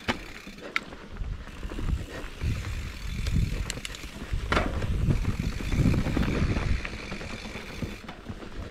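Mountain bike rolling fast over a dirt singletrack: tyre and frame rumble with rattles and knocks from bumps, heaviest through the middle, and the rear freehub ticking while coasting.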